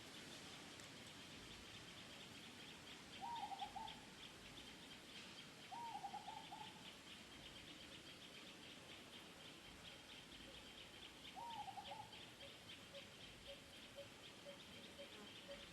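Faint animal calls: three short runs of quick, rising-and-falling hooting notes, over a steady high pulsing chirr.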